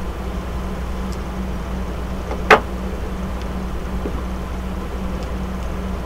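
Steady low hum of room background, with one sharp click about two and a half seconds in.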